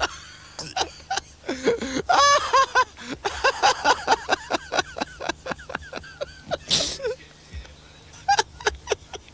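Voices in quick, short bursts of chatter that the recogniser could not turn into words. There is a high-pitched call about two seconds in and a short hiss near the seven-second mark.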